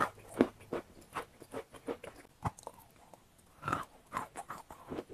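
A person chewing and biting a chunk of white eating chalk, close to a clip-on microphone. A string of irregular sharp crunches comes as the chalk breaks between the teeth, with a short lull around three seconds in.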